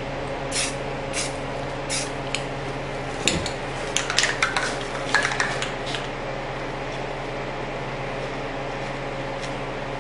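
Aerosol spray paint can giving about four short hissing bursts in the first two and a half seconds, lightly dusting on a coat of paint. A knock follows a little past three seconds, then a couple of seconds of light clicks and rattles, over a steady low hum.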